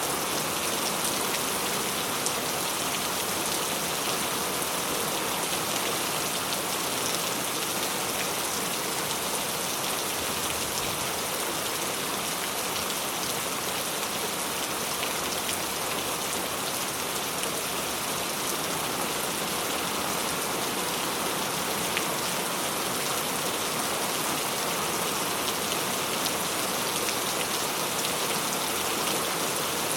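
Steady rain falling on a surface, a dense even hiss with many fine drop patters.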